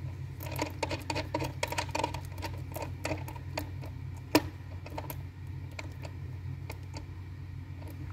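Quick runs of small clicks and taps from gloved hands handling wires at the terminal cup of a carpeted subwoofer box, with one sharp knock about four seconds in and scattered clicks after, over a steady low hum.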